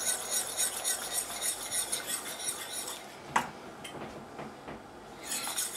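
Flat coil wire whisk scraping and rattling fast against a stainless steel saucepan as asparagus stock thickened with cornstarch is whisked. A single clink comes a little past halfway, then a quieter pause, and the whisking starts again near the end.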